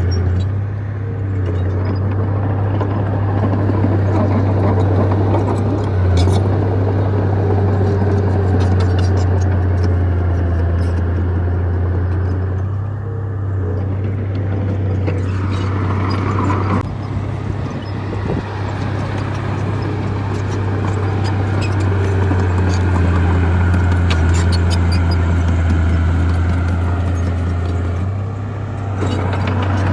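A crawler bulldozer's diesel engine running under load, a steady low drone with scattered clicks and clanks. The engine eases off briefly a few times.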